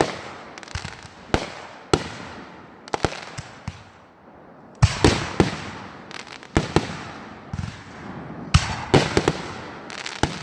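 Fireworks going off: a series of sharp bangs at irregular intervals, several in quick clusters, with crackle and echo trailing after them.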